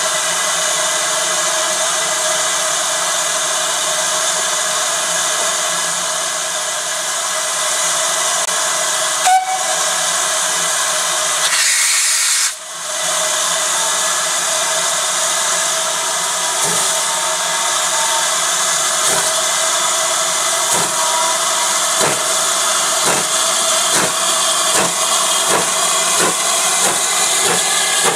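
GWR 28xx-class 2-8-0 steam locomotive with a loud, steady hiss of escaping steam. From about halfway through it starts away: exhaust chuffs begin slowly and quicken, under the hiss of its open cylinder drain cocks.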